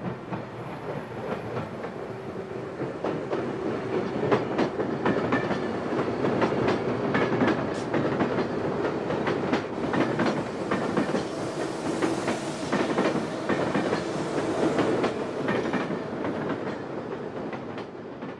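Train rolling past, its wheels clattering over the rail joints, swelling louder and then fading away.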